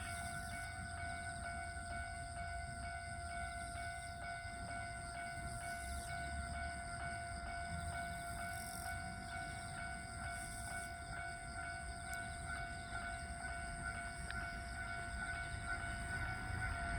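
Japanese railway level-crossing alarm ringing at a steady pace of about two strikes a second over a continuous tone, warning that a train is approaching.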